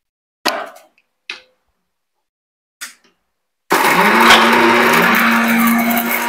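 Three short knocks as the small steel jar of a mixer grinder is settled on its base, then about three and a half seconds in the mixer grinder's motor starts abruptly, spins up and runs loud and steady, grinding wet garlic, ginger and spice masala into a paste.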